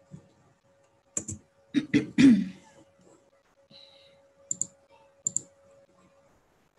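Computer mouse and keyboard clicks, a few separate sharp clicks, with a short cough-like throat sound about two seconds in and a faint steady hum underneath.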